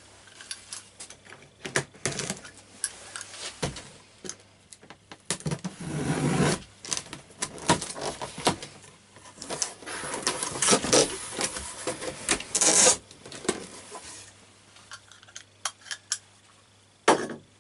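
Irregular handling sounds: scattered clicks and knocks with stretches of rustling and scraping, and a sharp knock near the end.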